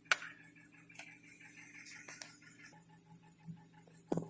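Nissan QG18DE 1.8-litre inline-four idling faintly at operating temperature, with a light even ticking about six times a second. A few sharp clicks sound over it, the loudest near the end.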